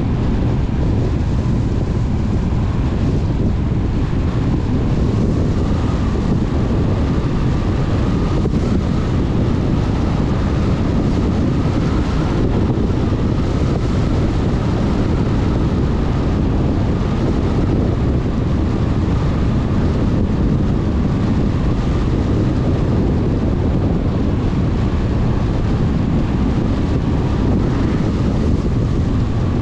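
Steady road and wind noise of a car on the move: an even, deep rumble with a faint whine above it that holds throughout.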